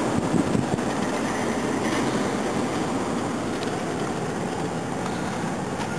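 Steady road and engine noise heard from inside the cabin of a moving patrol car.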